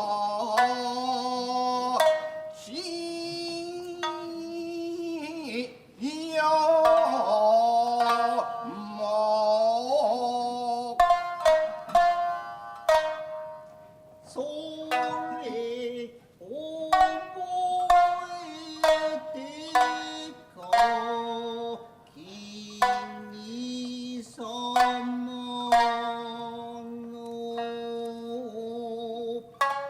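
Tokiwazu narrative music: a chanter singing long, wavering held notes over sharp plucked shamisen strokes.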